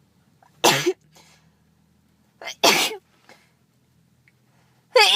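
A person with a congested head cold sneezing three times, about two seconds apart, each sneeze short and loud.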